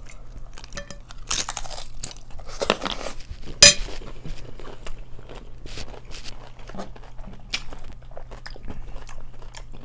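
Crunching and chewing of Flamin' Hot Doritos nachos, the chips loaded with toppings, in irregular bites. The sharpest, loudest crunch comes about three and a half seconds in.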